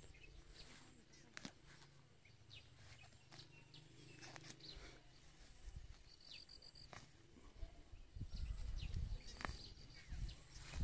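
Faint rural outdoor ambience: scattered bird chirps and a short trill, with small clicks and rustles from hand-pulling weeds out of grass. A low rumble on the microphone sets in about eight seconds in.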